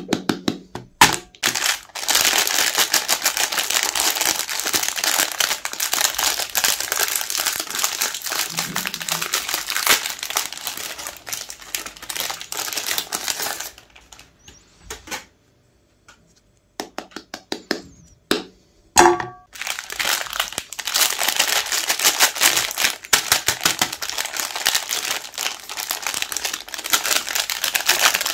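Magnum ice cream bar wrappers of metallised plastic film crinkling and tearing as they are peeled open by hand, in long dense runs with a pause about halfway. A few sharp knocks stand out, one about a second in and one about two-thirds through.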